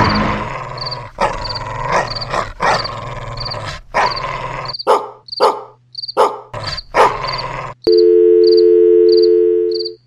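Dog barking over and over, a sound effect laid on a toy dog figure. The barks give way to a loud, steady two-note tone about eight seconds in, which is the loudest thing here.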